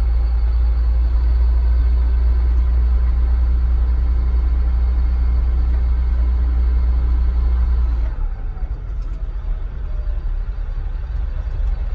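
Cab interior sound of a Humvee's diesel engine rumbling as it rolls slowly along a dirt road. About eight seconds in the deep rumble drops and turns uneven, as if the vehicle eases off.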